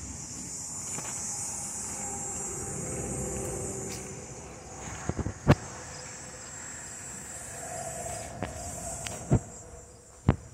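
Insects chirring steadily and high-pitched, with several sharp clicks or knocks, the loudest about five and a half seconds in and again near nine seconds.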